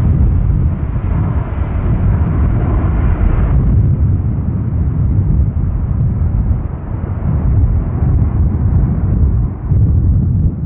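Airbus A330-300's Rolls-Royce Trent 700 turbofans at climb power after takeoff: a loud, deep, steady jet rumble from the departing airliner, its higher sound thinning out a few seconds in as it climbs away.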